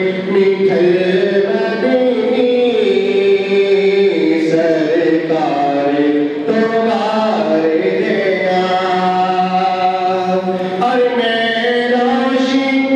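A man singing a Punjabi naat into a microphone, unaccompanied by instruments: long held notes that glide and waver between pitches, over a steady low drone.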